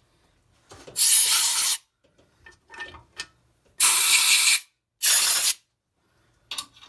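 Three short hissing blasts of pressurised spray, about one, four and five seconds in, with a few light clicks between the first and second.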